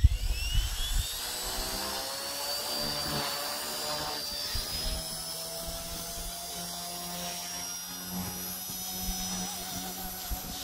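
Blade mCP X BL micro RC helicopter's brushless motor spooling up with a rising whine over the first two seconds, then running at a steady high whine with rotor hum as it hovers. A low rumble sounds in the first second.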